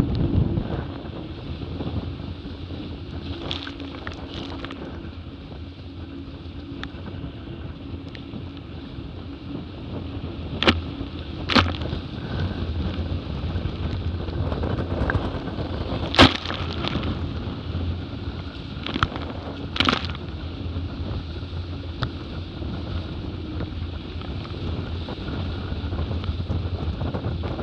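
Wind buffeting the microphone and water rushing past the hulls of a Hobie 20 catamaran sailing at speed, a steady rumbling hiss. Several short sharp hits stand out in the middle stretch.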